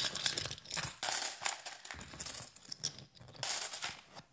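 Loose 50p coins clinking and jingling against one another as they are handled and sorted, in irregular clusters of small metallic clicks.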